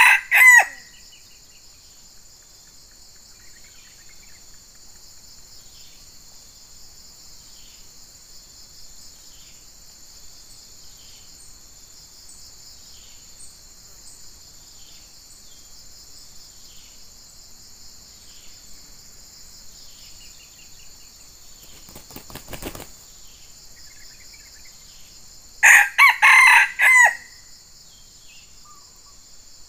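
Red junglefowl rooster crowing: the tail of one short crow at the start and a full crow near the end, over a steady chorus of insects. A brief rustling flurry comes about three seconds before the second crow.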